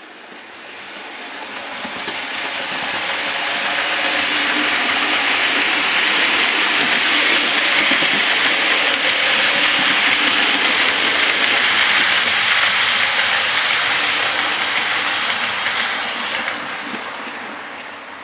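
00 gauge model train, a Hornby Railroad LNER P2 locomotive hauling four coaches, running past on the track. A steady rushing rattle of wheels on rail grows as it approaches, is loudest through the middle and fades near the end.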